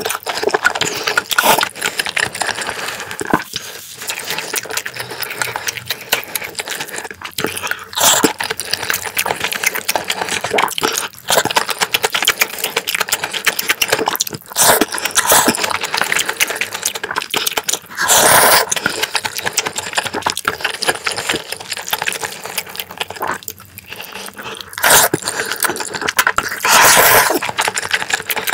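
Close-miked eating of black-bean-sauce noodles: continuous wet chewing with clicks and scrapes of a spoon. A few louder, rushing sounds about a second long come every few seconds.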